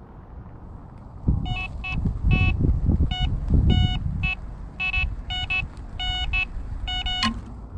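Electronic carp bite alarm sounding a fast, uneven string of high beeps, starting about a second and a half in: a run, with a fish taking line. Wind buffets the microphone underneath.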